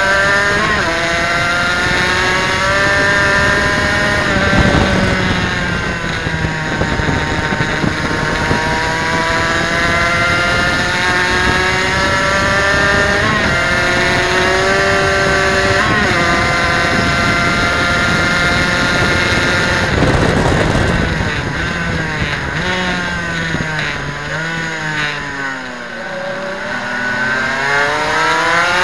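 Suzuki RGV250's two-stroke V-twin engine at racing revs, rising in pitch through the gears with a short drop at each upshift. About two-thirds of the way through the revs fall away as the bike slows, then climb again near the end.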